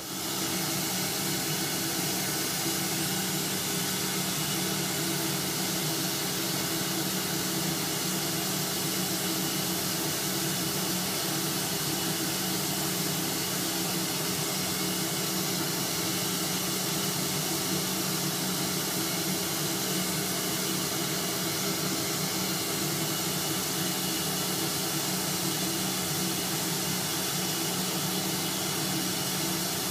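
Shop vac running steadily, a loud even rush of air with a steady hum, pulling suction through a hose to a syringe-tip vacuum seeder.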